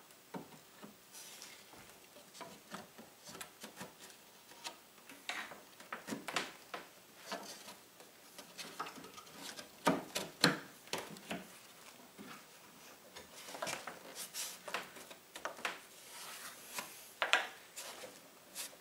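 A glued wooden support plate being set onto a pinball cabinet's wooden frame and worked into place by hand: scattered knocks, taps and wood rubbing on wood, the loudest two knocks about ten seconds in.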